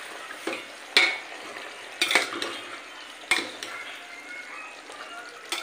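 Metal ladle stirring chicken curry in a stainless steel pot, scraping and clinking against the pot's side, over a steady sizzle from the pan. Sharp clinks come about once a second, the loudest about a second in.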